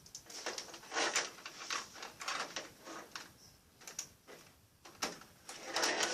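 A child's robot-kit bulldozer rattling and clicking in short, irregular bursts.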